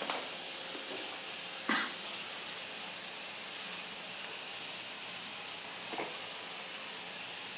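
Steady hiss with two short knocks on the tile floor, a sharper one about two seconds in and a fainter one about six seconds in, with no squeak from the rubber chicken and no bark.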